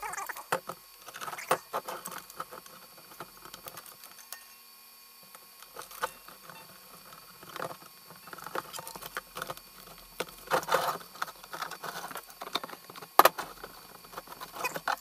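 Nylon ukulele strings being threaded through and tied at the bridge of a 3D-printed plastic ukulele: irregular rustling, scraping and light clicks of string and fingers on the body, with one sharp click about thirteen seconds in.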